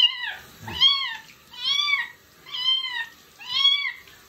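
Young kitten meowing repeatedly while being bathed: about five high calls roughly a second apart, each rising and then falling in pitch. These are frightened cries at being held wet in the sink.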